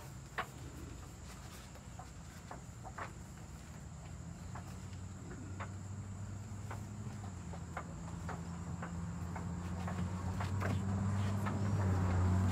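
Insects droning steadily outdoors in summer, with scattered light clicks. A low hum swells steadily louder through the second half.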